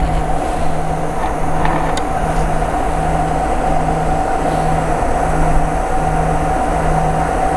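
Paddle-wheel pond aerator running: a steady motor whine over a low hum that pulses about once every three quarters of a second, with a low rumble beneath.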